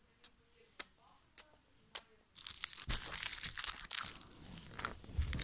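A few isolated clicks, then from about two seconds in a continuous dense crinkling of a chocolate bar's wrapper being handled and crumpled.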